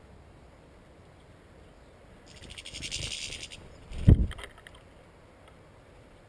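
Goldfinches at a tube seed feeder: a high, buzzy, rapidly pulsing sound lasting just over a second, then a short loud low thump about four seconds in as a goldfinch flaps on the perch and knocks against the feeder.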